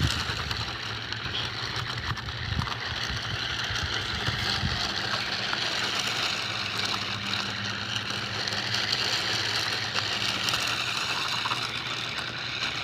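Motor of an off-road RC car whining as it is driven across slick, icy ground, the whine rising and falling with the throttle over a steady low hum.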